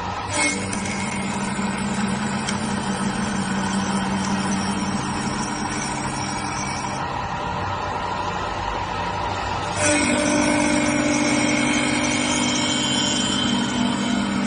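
CNC wood-turning lathe running, its motors giving a steady hum with several tones. About two-thirds of the way in it gets louder and a higher hum joins in, as another motor or spindle comes up to speed.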